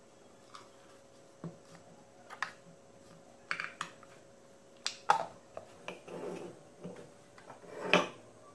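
Scattered light clicks, knocks and brief rustles of objects being handled, loudest about eight seconds in, over a faint steady hum.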